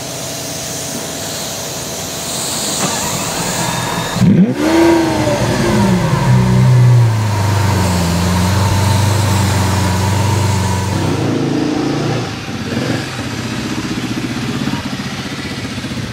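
Lamborghini Aventador LP700-4's V12 engine starting: about four seconds in it catches with a rev flare that rises and falls in pitch, then settles into a steady idle that carries on slightly quieter from about twelve seconds in.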